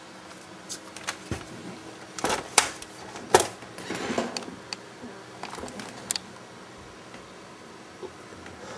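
Handling noise: a few sharp clicks and knocks from hands and a camera working around an opened Laserdisc player, the loudest two about two and a half and three and a half seconds in, with a short rustle just after.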